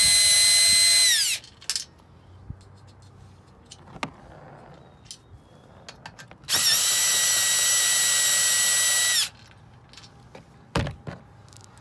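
DeWalt cordless drill/driver backing out bolts. Its steady high whine stops about a second in, then a second run of about three seconds comes in the middle. Small clicks fall between the runs, and a sharp knock comes near the end.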